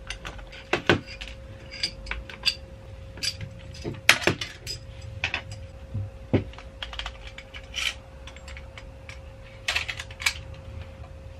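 Irregular clicks and clacks of plastic toy blaster parts being handled and pried apart, with the sharpest clacks about a second and four seconds in. A faint steady hum runs underneath.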